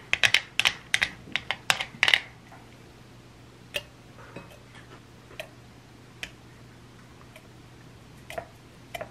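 Wooden spoon stirring mashed strawberries in a plastic chopper bowl, clicking quickly against the bowl for about two seconds. Then a few scattered taps as the purée is spooned out into glass tumblers.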